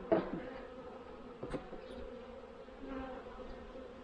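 Honeybees buzzing around an open hive, a steady hum with a briefly louder buzz just after the start. A single sharp click sounds about a second and a half in.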